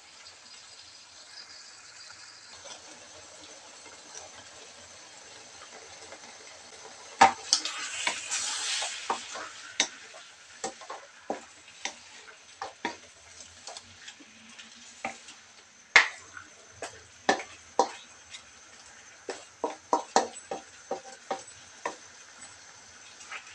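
Chicken sizzling gently in a wok. About seven seconds in there is a sharp knock and a brief louder burst of sizzling. After that a wooden spatula knocks and scrapes against the wok again and again as the chicken, tomatoes and onions are stirred.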